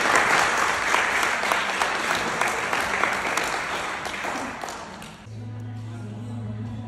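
Applause from a small crowd, fading out over about five seconds. It gives way to a slow song starting, with a steady low held note.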